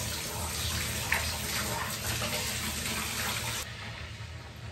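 Bath tap running, water pouring steadily into a filling bathtub; the sound turns duller for about a second near the end.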